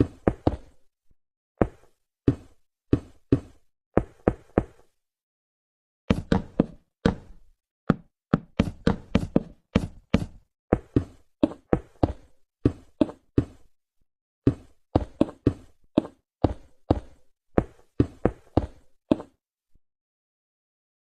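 A long run of sharp, irregular knocks, two or three a second, with a few short pauses, stopping shortly before the end.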